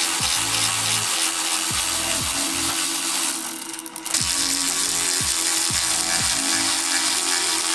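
Power tool running steadily on a bumper bolt that has rounded off, with a short break a little after three seconds in.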